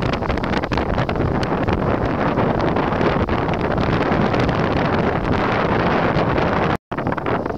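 Strong wind blasting across the microphone on a sailing boat: a loud, steady rush of wind noise that cuts out for an instant near the end.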